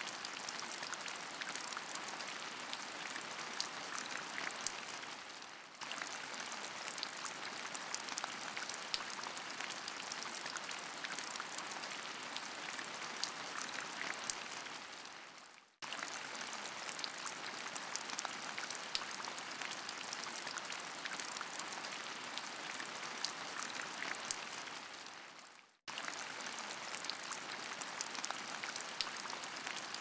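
Steady rain with many small drop ticks. About every ten seconds it briefly fades out and cuts back in.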